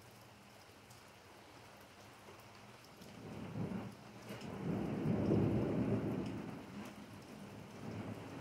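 Steady rain falling, with a low rumble of thunder that starts about three seconds in, swells to its loudest near the middle and slowly dies away.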